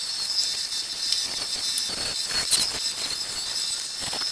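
Bandsaw running and cutting through a reclaimed pallet board, a steady high hiss from the blade in the wood. The cutting noise swells briefly about two seconds in.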